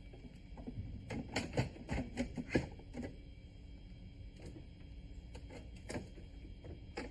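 Clatter of plastic clicks and knocks as a coffee machine's hoppers are handled and fitted back into the unit, thickest about one to three seconds in, with a few single clicks near the end.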